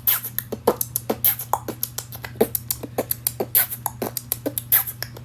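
Vocal beatboxing: a quick, uneven run of mouth-made clicks, kicks and hi-hat-like hits with no words.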